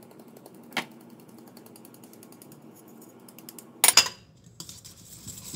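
Metal flour sifter sifting flour into a mixing bowl: a fast, even train of fine ticks for a few seconds, with a single click near the start. About four seconds in there is a loud metallic clatter.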